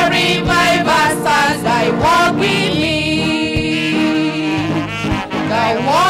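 Women singing a church worship song into microphones, amplified, over sustained instrumental backing with a low beat about every one and a half seconds.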